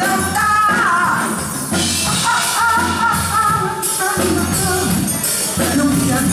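Live band playing a Brazilian song with a woman singing over drums, bass and percussion.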